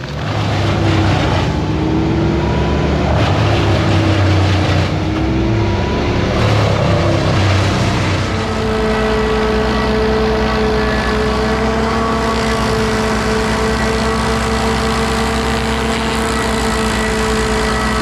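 An engine running loudly, its pitch wavering for several seconds and then holding steady at a high speed.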